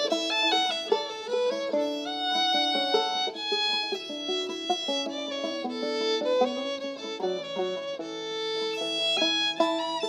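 Fiddle playing a lively traditional Ozark old-time tune, with banjo accompaniment, ending on a long held low note near the end.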